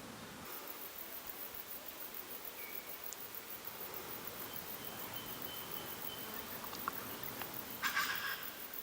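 Forest ambience: a steady faint hiss of insects, with a thin high whistling note held for about two seconds in the middle and a few short high chirps and clicks. A brief louder rustling burst comes near the end.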